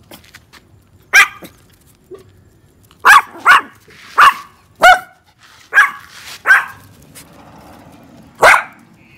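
Two small dogs barking: about eight sharp, high barks at uneven intervals.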